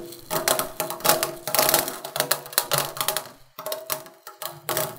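Small hard candy sprinkles rattling: a quick, irregular clatter of tiny clicks, broken by a brief pause about three and a half seconds in.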